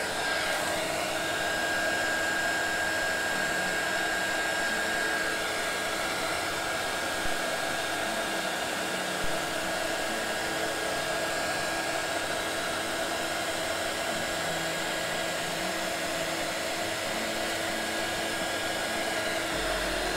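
Small handheld heat gun running steadily, blowing hot air with a constant high whine, warming the vinyl sticker while it is squeegeed flat.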